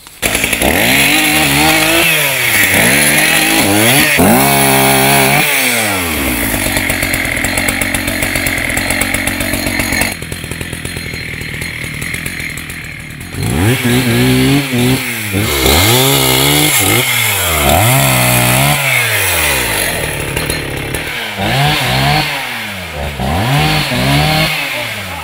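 Two-stroke chainsaw engine starting up and revving up and down over and over. It holds at speed for a few seconds, drops back to a lower run, then revs up and down again.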